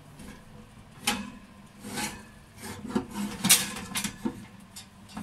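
Wire rack of a Panasonic steam oven scraping and clattering on its runners as it is pulled out with a ceramic bowl on it: a series of short scrapes and knocks about a second apart, the loudest about three and a half seconds in.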